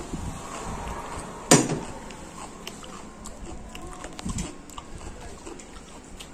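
Steel spoon clinking sharply against a steel dish about a second and a half in, ringing briefly. Around it come soft chewing and small clicks of eating by hand from a steel plate.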